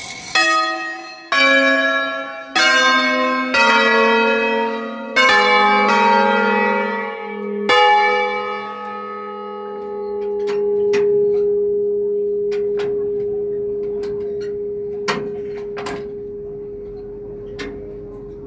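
Five-bell church peal in A-flat (Giorgio Pruneri bells of 1907) heard close up from inside the bell chamber: about six loud strikes, bells sounding one after another in descending pitch, over the first eight seconds. The last notes then hum and slowly fade while a few sharp knocks sound from the bell frame.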